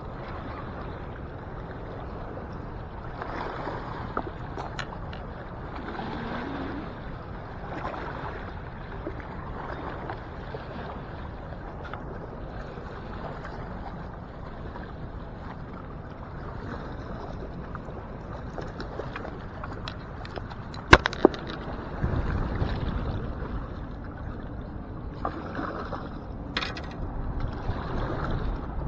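Fast river current rushing along a rocky bank. A single sharp knock comes about two-thirds of the way through, followed by wind buffeting the microphone.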